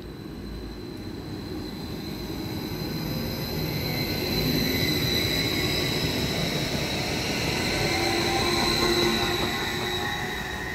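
Meridian Stadler FLIRT 3 (class 1427) electric multiple unit running past along the platform, with a rolling rumble and high steady whining tones. It grows louder over the first few seconds, is loudest as it passes close, then eases slightly near the end.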